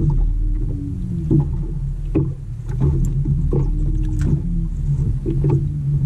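A boat's motor humming steadily, with frequent short knocks and slaps over it, from the hull and from handling the catch.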